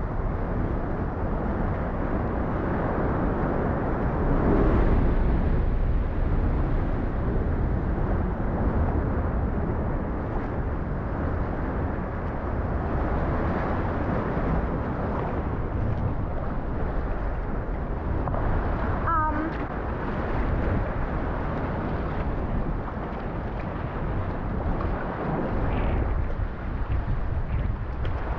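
Wind rushing over the microphone and sea water washing around a kayak, a steady noise throughout. About two-thirds of the way through there is one short call that bends in pitch.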